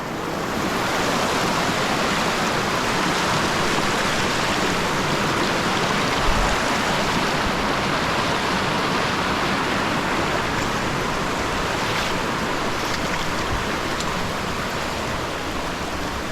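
Mountain river rushing over rocks: a steady, full wash of running water that swells up in the first second and then holds even.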